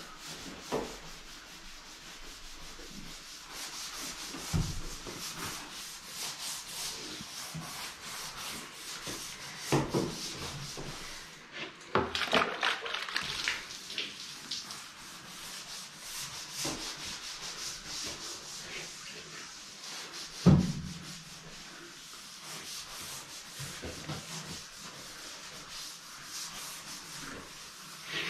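Long-handled brush scrubbing the wet outside of a stainless steel bulk milk tank in quick back-and-forth strokes, with a few sharp knocks, the loudest about two-thirds of the way through.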